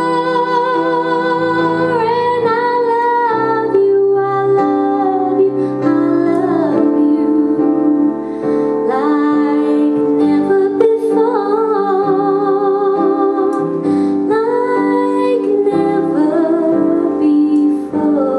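A woman singing a slow song, with vibrato on her held notes, over piano accompaniment.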